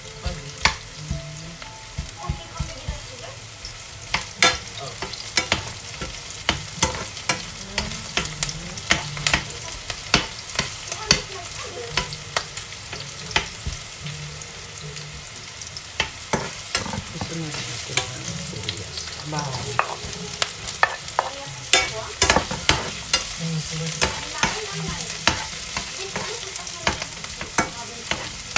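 Diced onions sizzling in oil in a nonstick frying pan while a spatula stirs them, tapping and scraping against the pan many times at an irregular pace.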